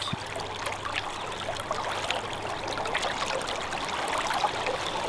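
Flowing mountain trout stream, its current rippling over a shallow riffle in a steady rushing hiss.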